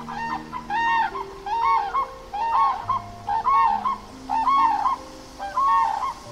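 Grey crowned crane giving a run of short calls, about two a second, each rising and falling in pitch. Background music with slow, held low notes runs underneath.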